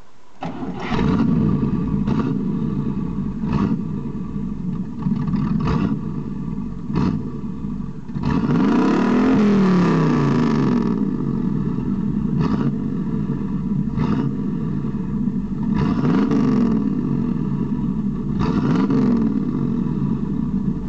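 1962 Buick LeSabre's 401 nailhead V-8 running and revved through its exhaust: repeated short blips of the throttle every second or two, with a longer rev rising and falling about eight seconds in and a few more revs near the end.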